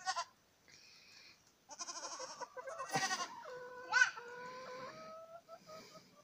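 A farm animal's long call, held on one steady pitch for about a second and a half, comes just after a short knock about three seconds in; fainter short calls come before and after it.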